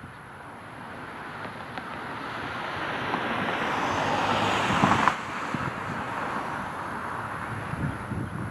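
A passing vehicle: a rushing noise that builds for about five seconds, then drops off suddenly to a lower, steady hiss.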